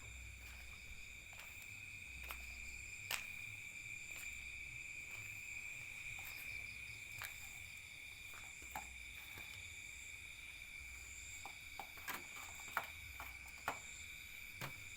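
Crickets trilling in a steady high chorus after rain, with a few scattered sharp clicks.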